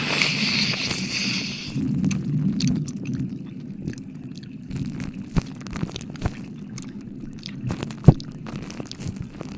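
Close-microphone ASMR trigger sounds: a hiss like blowing on the mic for the first second and a half. Then low rumbling handling noise on the mic with scattered small clicks, and one sharp click about eight seconds in.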